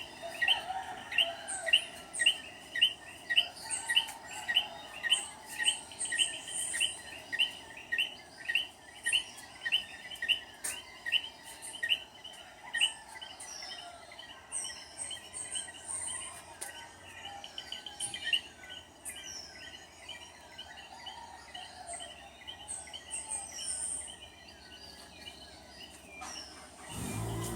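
Coquí frogs calling: one loud caller repeats its short call about twice a second, with fainter higher-pitched calls from others around it. The loud calls thin out and grow softer about halfway through.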